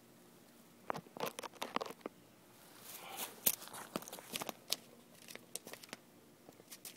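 Handling noise: scattered faint clicks and rustles as the camera is moved about, with the model's gas engine not yet running.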